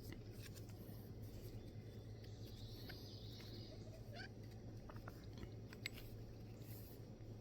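Faint scattered clicks and small creaks from the Umarex Brodax BB pistol's grip cap being screwed tight onto a fresh CO2 cartridge, over a steady low hum, with one sharper tick about six seconds in.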